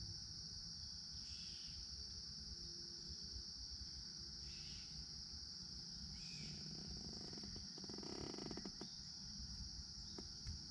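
Insect chorus, crickets trilling in one steady high-pitched drone, with a few short chirps over it. A low rumble sits underneath, and a patch of soft clicks and rustling comes about two-thirds of the way in.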